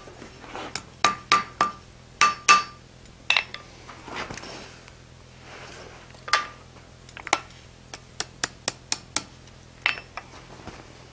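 Hammer blows on hot forged iron cabinet handles lying on a steel anvil, flattening and straightening them: two quick runs of ringing strikes in the first three seconds. Scattered lighter clinks of metal on the anvil follow.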